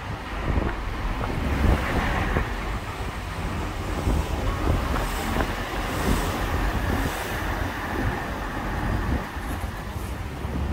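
Steady low rumble of a car driving along a city street, heard from inside the cabin, with road and traffic noise.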